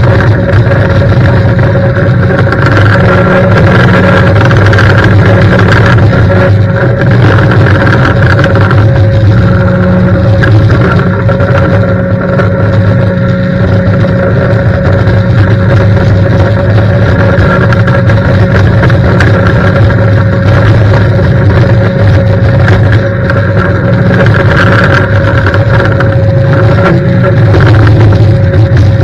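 A 20-inch Whirl-A-Way pressure-washer surface cleaner running over wet block paving: a loud, steady drone with a constant whine in it.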